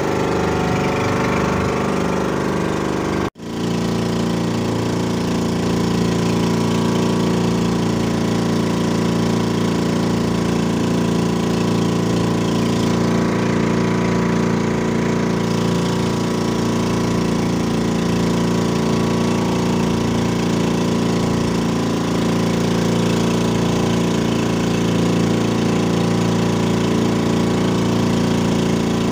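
A small fishing boat's engine running steadily at constant speed, with a momentary dropout about three seconds in.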